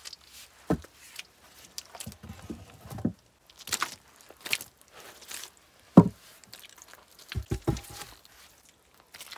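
Peeled logs knocking as they are set down on muddy soil and against a log wall, with footsteps and scuffs on wet ground between. One heavy thud comes about six seconds in, and a quick run of three or four knocks follows.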